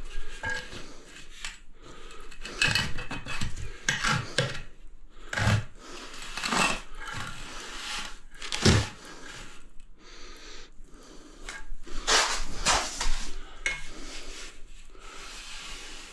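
Hand tool scraping and clinking on tile in irregular strokes, working filler into drummy (hollow) spots in the old tiled floor.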